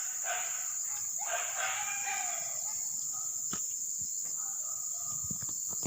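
Two drawn-out animal calls with a falling tail, the second lasting about a second and a half, then fainter calls. A steady high insect drone runs underneath, with a few sharp clicks.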